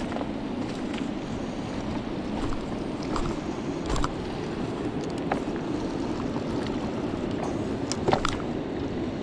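Steady rush of water pouring through the dam and over the river, with a few knocks and clicks as the angler moves over the rocks and takes hold of the fishing rod, the sharpest about four and eight seconds in.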